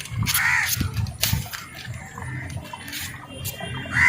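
A crow caws once, about half a second in, over a low background rumble, with a few sharp clicks soon after.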